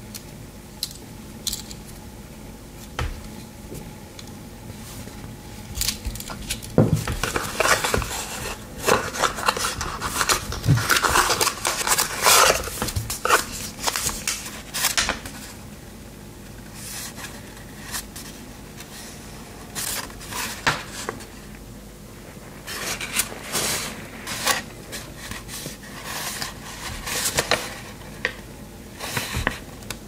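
Victorinox Ranger Swiss Army knife being handled, its metal blades and tools clicking and scraping as they are opened and closed. The clicks come in two busy stretches, one in the first half and one near the end, with scattered single clicks between.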